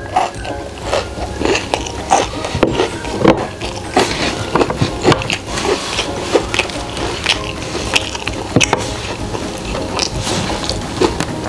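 Close-up eating sounds: a mouth chewing crispy fried chicken with crunchy kremes crumbs, and hands tearing the chicken apart, heard as many short, irregular crunches and clicks.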